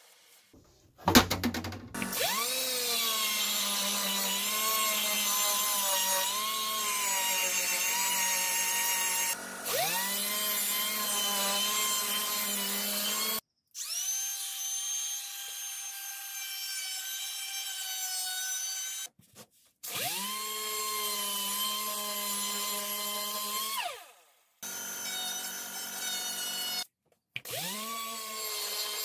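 Air-powered random orbital sander spinning up with a rising whine, then running steadily as it sands a hardwood cutting board. The run-up happens four times, and the sound breaks off abruptly in between. A short loud burst comes about a second in.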